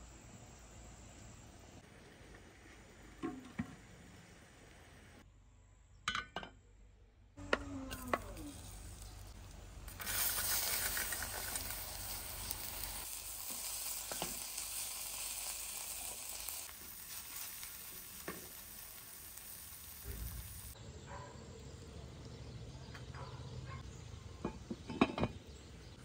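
Barberries sizzling in a hot steel pan while a wooden spoon stirs them; the sizzle starts suddenly about ten seconds in and eases off after several seconds. A few sharp knocks of pans and utensils come before it and near the end.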